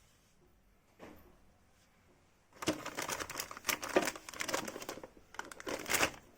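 Crinkling and rustling that lasts about three and a half seconds, starting partway through, with a single light knock about a second in.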